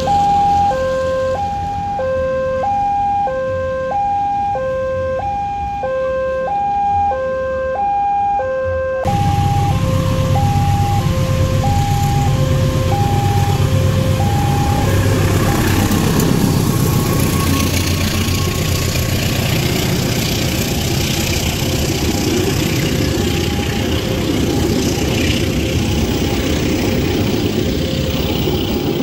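Level-crossing warning alarm sounding a two-tone alternating chime, one high-low cycle about every second. About nine seconds in, loud diesel engine rumble and track noise come in abruptly, and the alarm carries on more faintly until about fifteen seconds in. The rest is a passing train: a diesel locomotive and coaches rumbling over the rails.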